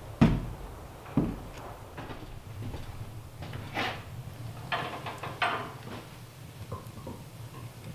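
Two sharp knocks about a second apart, then a few short clanks and scrapes as a wood stove's door is opened and the fire inside is tended.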